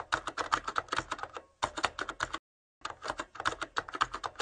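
Keyboard typing sound effect: a quick run of key clicks, with a short break a little past halfway.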